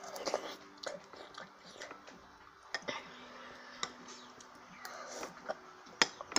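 Close-up eating sounds: chewing and biting mouthfuls of rice, with sharp clicks of a metal spoon, the loudest about six seconds in.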